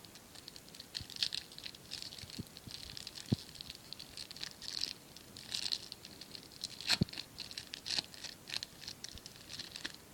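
Foil booster pack wrapper crinkling and tearing as it is opened, with the trading cards inside rustling as they are handled; irregular crackling with a couple of sharper clicks.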